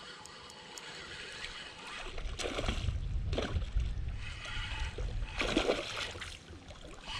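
A small hooked pike thrashing at the surface on the line, splashing three times during the fight, over a low rumble.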